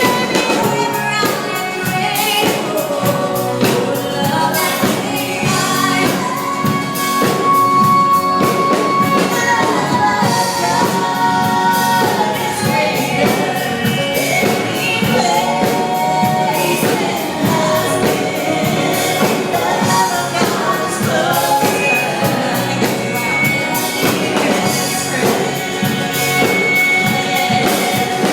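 Live gospel music: voices singing with a backing band, with long held sung notes over a steady beat.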